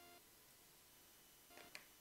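Near silence: room tone, with a faint brief click about three-quarters of the way through.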